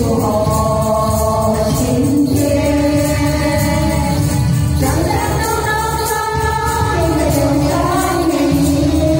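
Women singing a Hakka song together through microphones and a PA over a steady backing track, with long held notes that glide between pitches. Tambourines jingle in a regular beat throughout.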